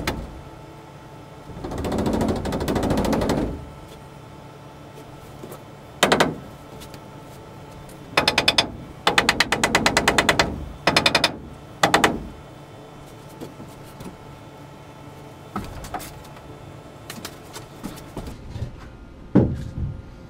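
Cordless power driver running in short bursts, the later ones a rapid hammering rattle, driving screws to fasten a wooden brace post to the camper's roof framing. A few knocks follow near the end.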